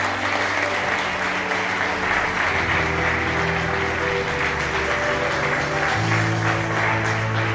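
Crowd applauding steadily, many hands clapping, over instrumental music holding slow, sustained chords.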